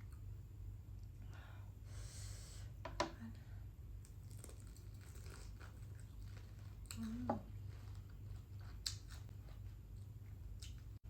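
Close-up chewing and biting of fried chicken, with a few sharp crunches and tearing sounds spread through and wet mouth noises between them.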